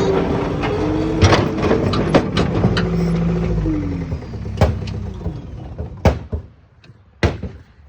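Skid steer loader engine running, then its note drops and fades away about four seconds in, with several sharp metal knocks and clanks, one near the end standing out.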